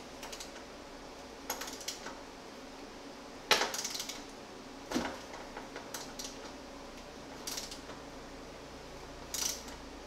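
Scattered small clicks and clinks of airbag mounting clips being pried off and pressed into place, about eight in all. The loudest is a sharp click with a brief rattle about three and a half seconds in.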